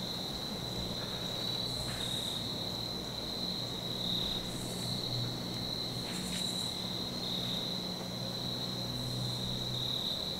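Crickets trilling in a steady, unbroken high-pitched chorus, with a few faint higher buzzes now and then.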